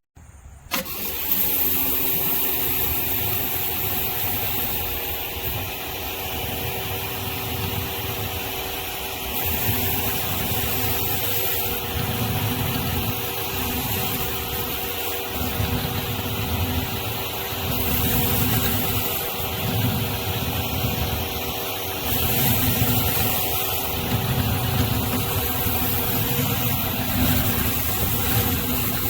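Pressure washer running steadily under load, its motor giving a steady hum with a loud hiss of water spraying, as the surface cleaner is worked over the ground; the sound cuts in after a brief gap at the start.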